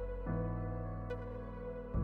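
Calm ambient background music with sustained chords, changing chord shortly after the start and again near the end.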